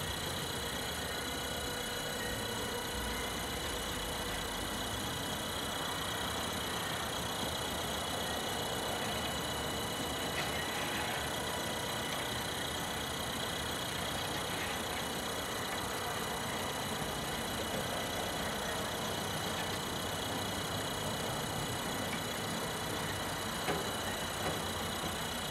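Galden heat-transfer fluid boiling steadily in a vapor-phase soldering tank, with a few faint pops.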